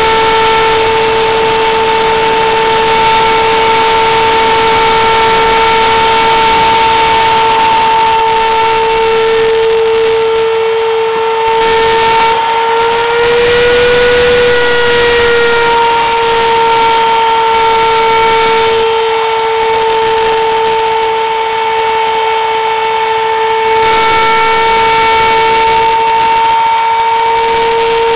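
Router spindle of a homemade CNC mill running at high speed while engraving lettering into a wooden board: a steady high whine over the hiss of cutting. Around the middle the pitch rises a little and settles back.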